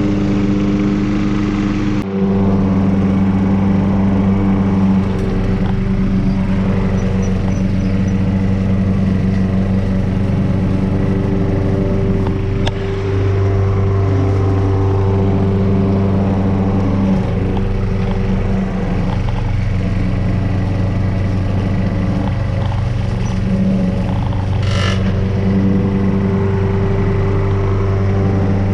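A push lawnmower's small engine running steadily alongside a tractor engine as the mower, carried on the tractor's bucket, cuts tall grass. The engine pitch shifts a couple of times, and there is one short sharp noise near the end.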